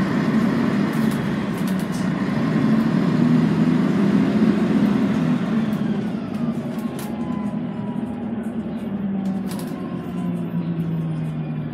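Scania N113CRB city bus heard from inside the cabin while under way: a steady diesel drone with rattles from the body and fittings. About six seconds in, a whine falls in pitch, and the engine note sits lower and quieter through the second half.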